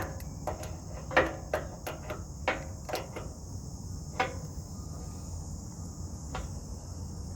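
Irregular sharp clicks and knocks of hand tools working a hydraulic hose fitting, about eight in all, over a steady high chorus of crickets and a low steady rumble.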